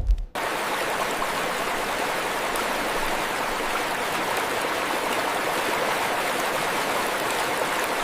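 A short thud, then a steady rush of flowing stream water starting about a third of a second in.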